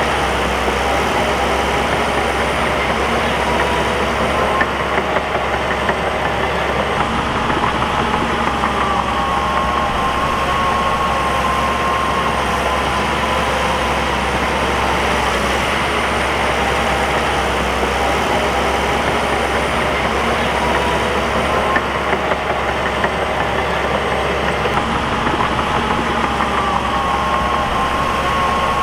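Bulldozer working: its diesel engine running steadily, with a whine that slowly rises and falls.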